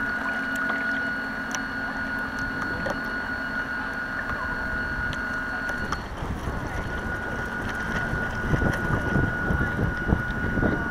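Steady high whine of an RC model boat's electric motor, heard from on board the boat. The whine cuts out for a moment about six seconds in and then picks up again, while choppy water splashing and wind on the microphone grow louder toward the end.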